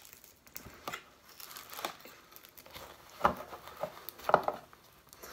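A burnt Samsung phone being pried apart with a small metal tool: scraping and crinkling crackles as bits of the damaged screen break away, with two louder sharp cracks about three and four seconds in.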